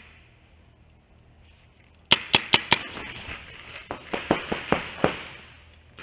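Paintball markers firing. After about two quiet seconds comes a quick string of about five shots, followed by more scattered shots, some of them fainter.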